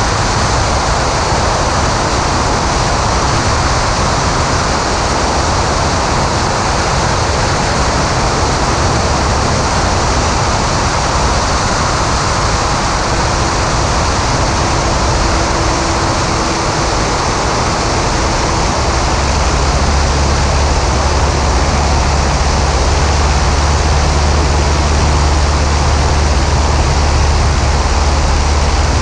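Maule M5-180C light aircraft in cruise flight, heard from outside the cabin: a steady rush of airflow and propeller noise over the engine's drone, from its four-cylinder Lycoming O-360. About two-thirds of the way through a stronger low drone comes in and the sound gets slightly louder.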